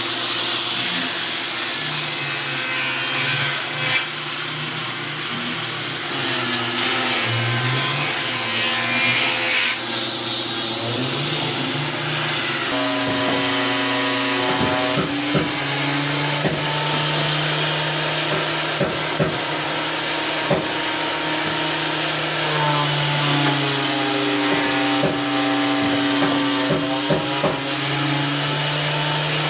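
An electric woodworking power tool runs and cuts wood, with a steady motor hum whose pitch shifts up and down as the load changes. Short knocks are heard through the second half.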